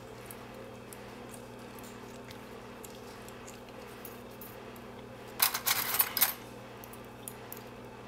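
Lock picks and a brass padlock clinking together: scattered faint ticks of metal on metal, then about a second of loud metallic clinking and rattling a little past halfway, as the tension wrench and pick are set into the keyway.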